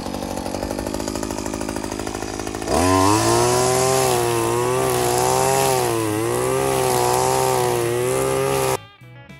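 Maruyama BT230L gas string trimmer engine running at low speed, then opened up to full throttle about three seconds in, its pitch wavering as the line cuts into tall grass. The engine sound stops abruptly near the end, and faint music follows.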